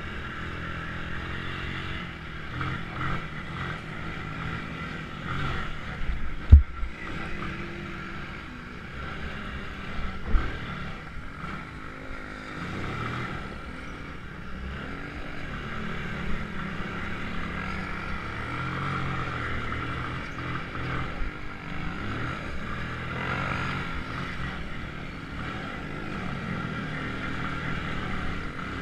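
Small off-road vehicle engine running hard, its pitch rising and falling as it is revved and eased over a rough dirt trail, with a rushing noise under it. Two sharp knocks, about six and ten seconds in, the first the loudest sound here.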